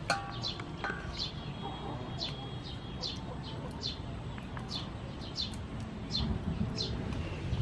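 A bird chirping repeatedly, short high notes that sweep down in pitch, about two a second at an uneven pace, over a steady low background rumble. A few light clicks near the start.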